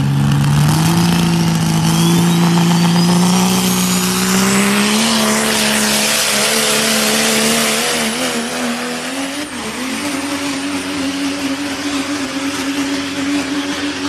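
Diesel pickup truck's engine at full throttle under heavy load while pulling a sled, its pitch climbing steadily over the first few seconds with a thin high whistle rising alongside, then wavering. About nine and a half seconds in the note steps up and holds steady, slightly quieter.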